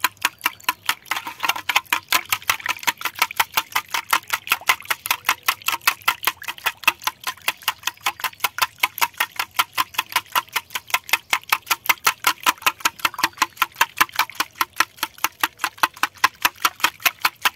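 Wire whisk beating a liquid egg-and-milk mixture in a glass bowl, its wires clicking against the glass in a fast, even rhythm of about five or six strokes a second.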